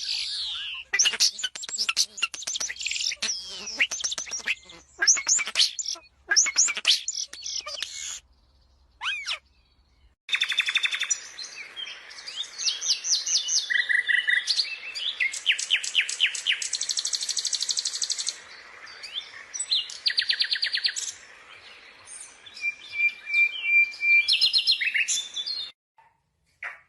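Birds chirping and calling: quick, sweeping whistled chirps for about eight seconds, a short pause, then a busier stretch of rapid trills and repeated notes over a steady hiss.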